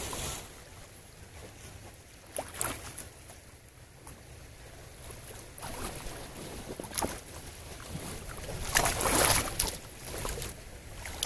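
Wind rumbling on the microphone beside a shallow stream, with water splashing and a few sharp knocks as a man wades and handles a large stone in the water. The loudest splashing comes about nine seconds in.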